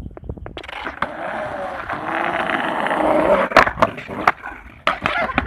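Skateboard wheels rolling over grooved concrete, growing louder as the board comes closer. About three and a half seconds in come sharp wooden clacks as the tail is snapped down and the board is popped up over a rock, then a few more knocks of the board on the ground.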